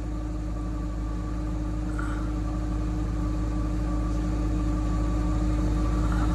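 A vehicle engine idling steadily, with a constant hum and no change in speed.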